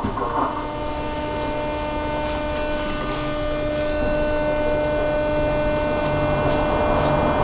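Steady electrical hum of several even tones inside a standing 81-717/714 metro car. A lower rumble joins about four seconds in.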